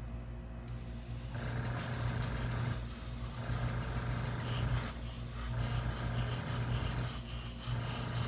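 Airbrush spraying flat black paint at a high starting air pressure: a steady hiss of air that begins about a second in and breaks off briefly about three times as the trigger is released. A steady low hum runs underneath.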